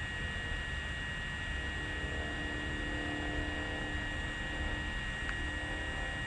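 Steady hum with two high, steady whining tones over a low rumble. A fainter, lower tone comes in for a few seconds in the middle.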